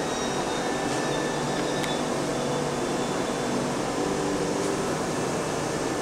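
Steady hum and hiss of a building's ventilation, with faint short tones coming and going over it.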